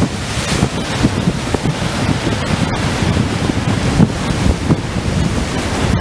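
Heavy ocean surf churning and washing around a pier piling, a dense steady wash of water, with wind buffeting the microphone.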